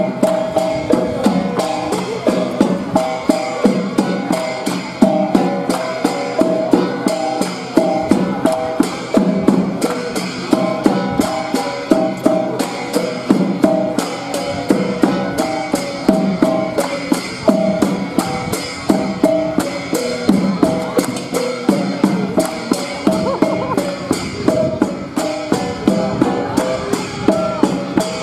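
Cheraw bamboo poles knocking on the ground and clapping together in a fast, even rhythm, with drums beating along and a short tune of a few notes repeating over and over.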